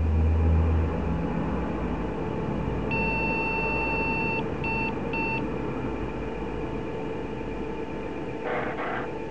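IBM 5150 PC's internal speaker beeping a power-on self-test code: one long beep of about a second and a half, then two short beeps, over the steady hum of the running machine. A low hum fades in the first second, and near the end the floppy drive makes a brief noise as it is accessed.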